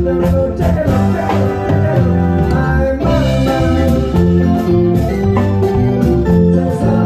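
A band playing music, with electronic conga and bongo sounds from a Roland SPD-20 percussion pad struck with sticks. Steady rhythmic hits run over held chords and a bass line.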